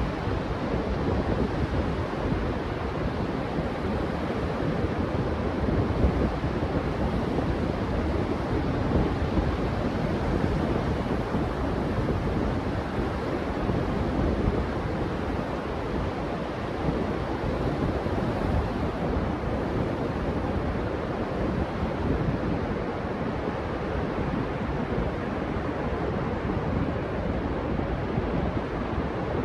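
Ocean surf washing steadily on a sandy beach, with wind buffeting the microphone.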